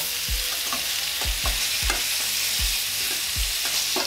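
Country-style pork ribs sizzling in hot oil in a skillet as they pan-sear, a steady hiss, with about seven dull knocks scattered through it as tongs turn the pieces in the pan.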